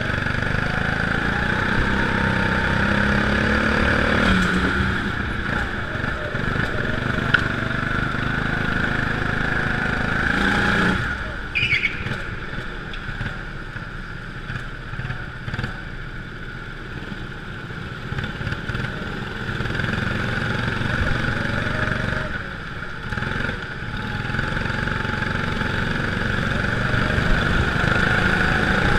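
Go-kart engine running flat out around a track, its note rising and falling with the revs. It drops off about eleven seconds in as the kart slows, with a short high squeal, then stays lower for a while before building again in the second half.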